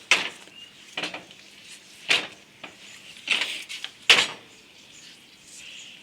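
Sharp knocks and rattles from the motorcycle's parts being handled, about five separate clatters roughly a second apart, the loudest about four seconds in.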